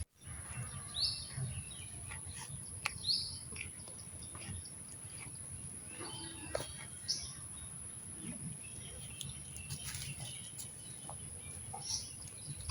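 Birds chirping outdoors: a few short, high calls that sweep downward, about a second in and again near three seconds, with scattered further calls later, over a steady low background noise.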